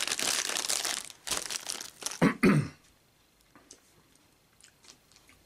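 Plastic snack bag crinkling and rustling as it is handled and folded closed, for about the first two seconds. Then two short coughs, followed by quiet with a few faint clicks.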